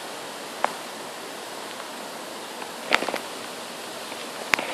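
Heavy tropical-storm rain falling steadily on trees. A few sharp close taps cut through it: one about half a second in, a quick cluster near three seconds, and one just before the end.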